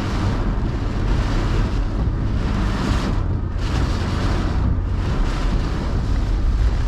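Severe thunderstorm wind blowing hard and buffeting the microphone, a steady loud rumble with gusts that surge and briefly ease about three seconds in and again near five seconds.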